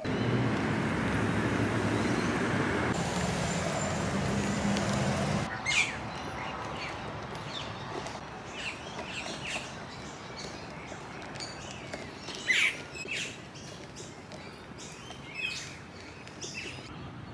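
A loud, steady rushing noise with a low hum for about the first five seconds, then birds chirping and calling in short, scattered notes over a quieter outdoor background.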